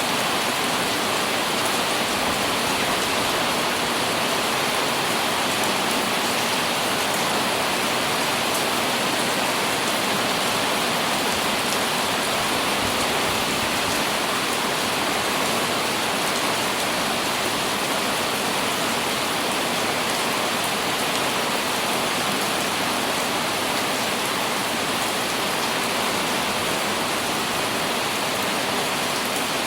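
Rain falling on an umbrella, a steady dense patter of drops on the canopy.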